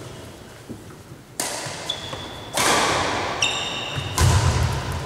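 Badminton rally: rackets striking the shuttlecock three times, each sharp hit trailing off in the hall's echo, the last hit with a heavy low thump. Sneakers squeak briefly on the wooden court twice in between.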